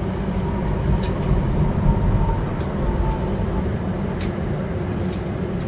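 A steady low rumble with a few faint clicks or taps.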